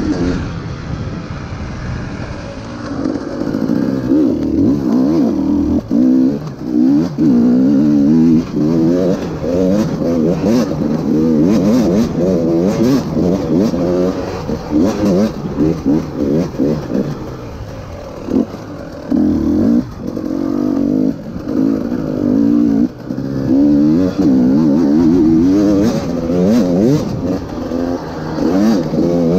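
KTM 300 EXC TPI two-stroke enduro engine revving up and down again and again as the rider accelerates and shuts off over rough terrain, with short dips where the throttle closes.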